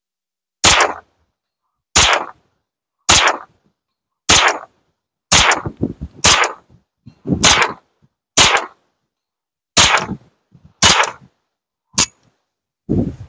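Kalashnikov USA KR9 9mm carbine fired in slow semi-automatic, about a dozen single shots roughly a second apart, each a sharp crack with a short ringing tail.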